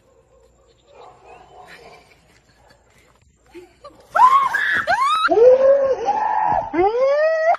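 A person screaming in fright: a run of loud shrieks, each rising and falling in pitch, starting about four seconds in after a few quiet seconds.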